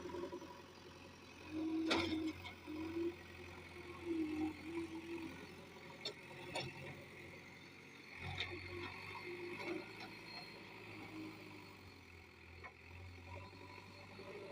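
Heavy diesel machinery running steadily at a work site, with sharp knocks about two seconds in and again about eight seconds in.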